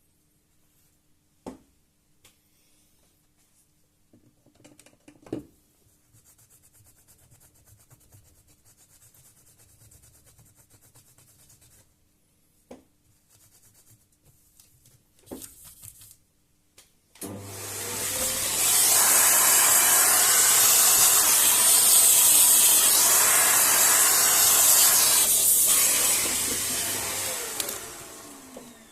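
A few faint clicks and light rubbing at first. Then, about seventeen seconds in, a small electric cleaning tool starts up: a motor running with a loud, steady hiss of air and a low hum under it, winding down with a falling pitch near the end.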